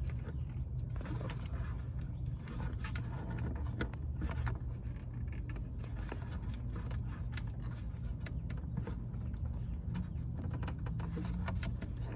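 Irregular small clicks and scrapes of hands and plastic working behind a car's front bumper, feeling for and twisting the turn-signal bulb socket, over a steady low hum.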